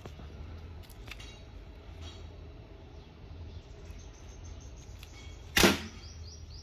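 A single shot from a .177 Diana Mauser K98 spring-piston air rifle about five and a half seconds in: one sharp, loud crack, the pellet leaving at about 726 feet per second.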